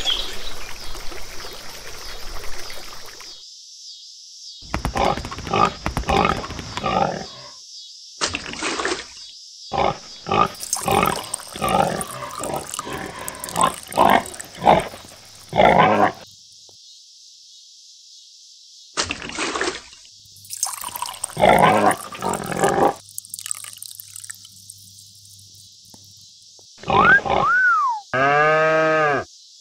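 Stock pig sound effect: pigs grunting and oinking in repeated bursts over a steady high hiss. Near the end a quick whistle glides up and down, followed by a shimmering twinkle chime.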